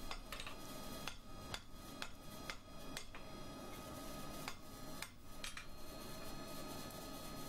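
Light, irregular hammer blows on the red-hot end of a ¾-inch square steel bar over the anvil, rounding off its folded corners and edges. The blows come roughly every half second at first, grow sparser, and stop a little over halfway through.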